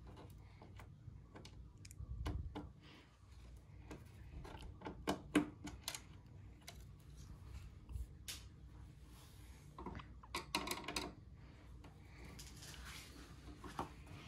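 Faint, irregular clicks and small metal taps of a screwdriver working screws out of a stove's sheet-metal control panel, with quicker runs of clicks about five and ten seconds in.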